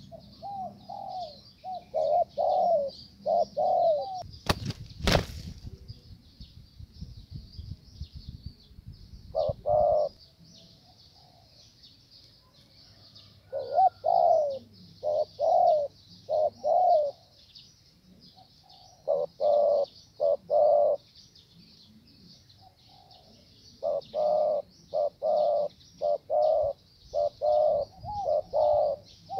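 Spotted doves cooing: groups of short, repeated coos, about four early on, a couple near ten seconds, then more bunched toward the end. A brief flutter of wings about five seconds in, over a steady high-pitched hiss.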